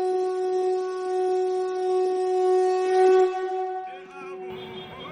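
Music: a wind instrument holds one long steady note that swells about three seconds in. Near the end it gives way to a wavering melody that bends up and down.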